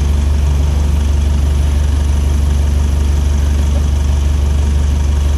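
Forklift engine idling steadily: a deep, even hum with no change in speed.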